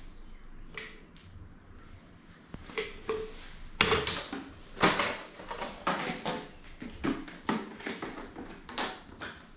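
A run of sharp clicks and clatters of hard plastic and metal, loudest in the middle: a caulking gun being set down on a tiled floor and the plastic parts of a cat flap being handled.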